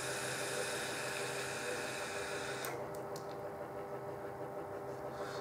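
Long draw on a vape mod with a Hobo V3 rebuildable dripping atomizer: a steady airy hiss of air pulled through the atomizer for nearly three seconds, ending with a few light clicks.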